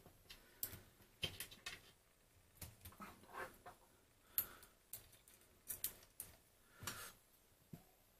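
Faint, irregular metallic clicks and short scrapes from the carriage and indexing latch of a Feliks-M mechanical calculator as the carriage is shifted from step to step with the indexer knob.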